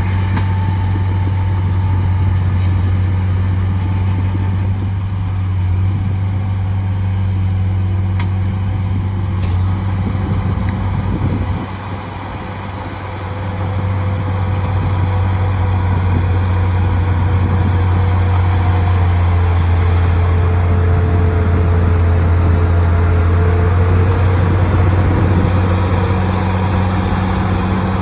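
Heavy diesel engine of earthmoving equipment running steadily with a deep, even drone. It drops off briefly about halfway through, then builds back up and holds a little louder.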